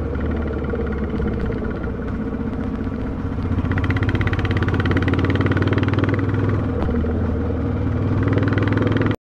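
Royal Enfield Classic 350's single-cylinder engine running on the move. It grows louder with a quick, even pulse from about three and a half seconds in, eases off, then picks up again near the end.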